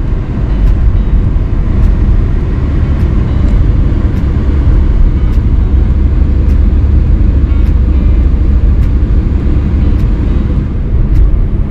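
Steady low rumble of road and tyre noise inside the cabin of a Mercedes-Benz S 400 d (W222) on the move, with faint regular clicks about once a second.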